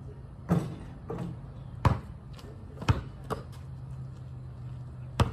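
A basketball coming off a shot and bouncing on asphalt: about six sharp thuds at uneven intervals, the loudest about two and three seconds in and just before the end, over a steady low hum.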